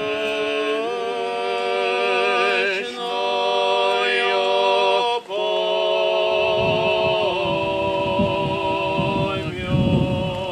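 Slow a cappella singing by men's voices in long held chords, changing about every two seconds, like an Orthodox memorial chant. A low rumble joins about six seconds in.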